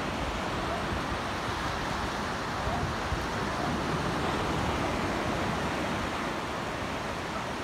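Steady wash of sea surf on the shore of a small cove, with wind rumbling on the microphone.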